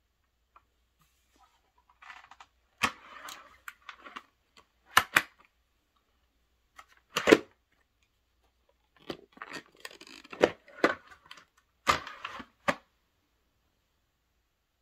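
Plastic clicks, clacks and rustling of a Scorpion EXO-Tech convertible motorcycle helmet being worked by hand as its chin bar is swung down into the full-face position and back up again. There is a run of clicks and rubbing a couple of seconds in, a single sharp click after about seven seconds, and a second run of clicks in the later part.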